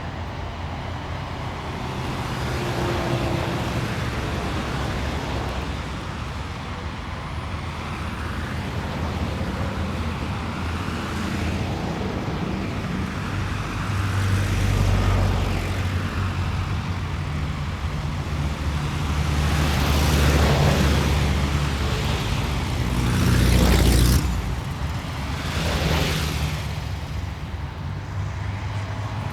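City street traffic: a steady low rumble of engines and tyres, with cars passing one after another, the loudest going by about halfway through and again a few seconds before the end.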